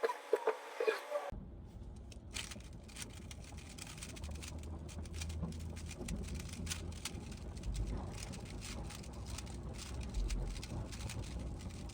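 A brief burst of short high tones in the first second, then a 3x3 Rubik's cube being turned quickly: a dense, irregular run of light plastic clicks and clacks as the layers snap round.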